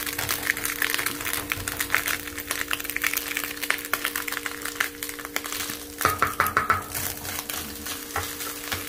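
Chopped ham and scrambled eggs crackling in a non-stick frying pan as they are stirred and scraped with a plastic spoon, with louder scraping about six seconds in. A steady hum runs underneath.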